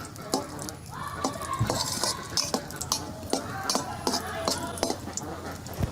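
Metal spatula stirring cashew nuts frying in hot ghee in a karahi: irregular clinks and scrapes against the pan over a light sizzle.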